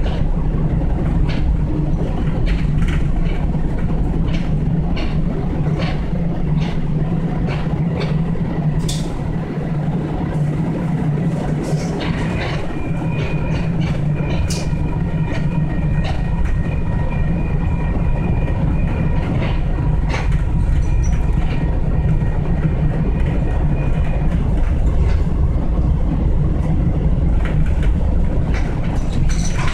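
Sacramento light rail train running, heard from inside the car: a steady low rumble and hum with scattered clicks from the wheels over the track. A faint high steady whine comes in about twelve seconds in and lasts roughly twelve seconds.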